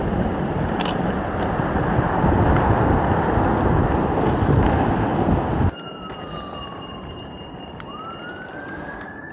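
Inline skate wheels rolling on pavement with wind on the microphone. It cuts off abruptly about six seconds in, and a siren wails, its pitch sliding slowly down, then up, then down again.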